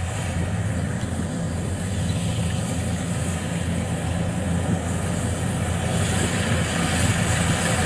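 Kubota DC95 combine harvester's diesel engine running steadily under load as it cuts and threshes rice, growing a little louder toward the end as the machine comes closer.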